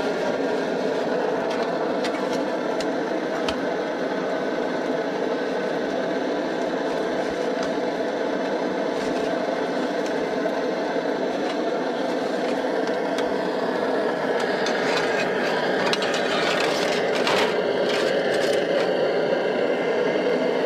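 Liquid-fuel camping stove, fed from a pressurised fuel bottle, burning steadily under a pot. Crinkling and rustling of foil and plastic being handled comes in over it in the last several seconds.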